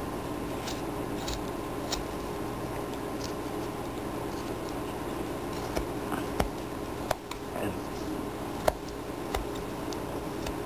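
A carving knife whittling a small block of wood by hand: irregular short, sharp clicks and snaps as the blade cuts and chips break away, the sharpest about three quarters of the way through, over a steady low hum.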